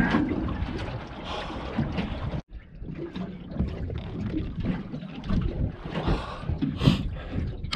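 Wind buffeting the microphone and water slapping against the hull of a small boat drifting at sea, with irregular knocks and bumps from someone moving about the deck.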